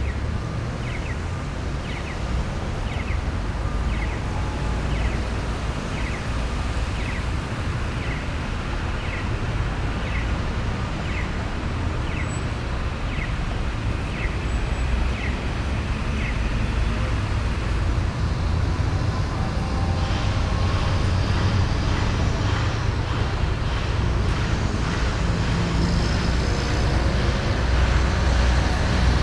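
City street traffic: a steady rumble of passing cars and heavier vehicles, with a regular high tick about once a second through the first half. The traffic gets somewhat louder and busier in the second half.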